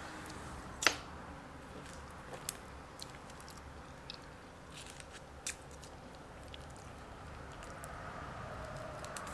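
A person chewing and eating with wet mouth sounds, broken by a few sharp clicks, the loudest about a second in.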